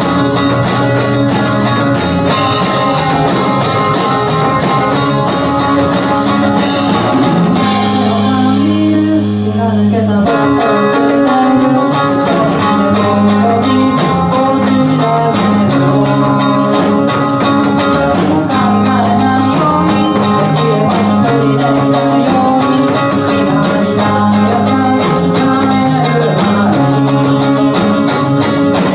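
Live rock band playing: electric guitars over a drum kit. About eight seconds in, the drums drop out for a couple of seconds, leaving the guitars.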